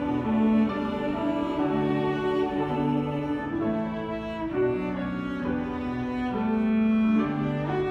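Bowed strings, led by a cello, playing a slow instrumental passage: several long held notes sound together and change pitch about once a second.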